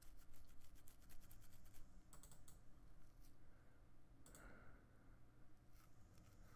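Faint clicks of a computer mouse: a quick run of clicks in the first two seconds or so, then a few single clicks, over quiet room tone.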